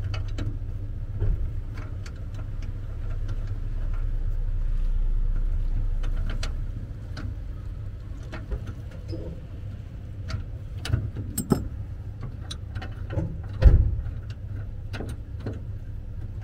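Steel wrenches clicking and clinking as bolts are tightened down by hand, in scattered irregular clicks with one sharper metal clank near the end. Under it a vehicle engine hums low, growing louder for a few seconds around the middle.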